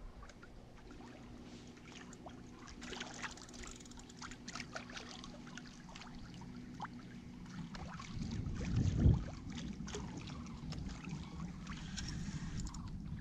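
Water lapping and slapping against the hull of a small boat on a choppy lake, with a low steady hum for the first eight seconds or so and one heavy low thump about nine seconds in.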